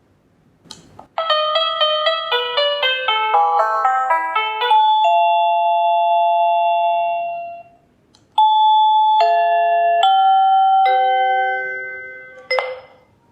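Electronic doorbell chime playing two tunes. First comes a quick run of bell-like notes ending on a held note that fades, then after a short gap a slower tune of four notes about a second apart that rings out. A short click comes just before the first tune and another near the end.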